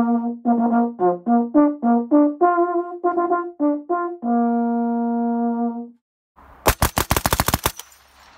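A bugle call: a run of short notes ending on one long held note. After a brief silence, a Vickers machine gun fires a burst of about a second.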